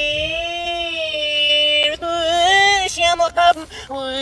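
Reversed, slowed-down recording of a sung voice playing back: one long held note for about two seconds, then a run of short, choppy sung notes.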